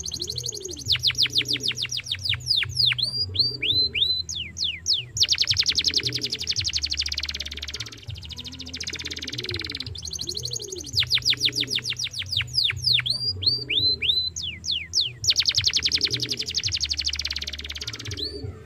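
Yellow domestic canary singing a loud, fast song: a run of rapid falling whistled notes, then a few bent notes, then a dense rolling trill. The same sequence of phrases repeats after about ten seconds.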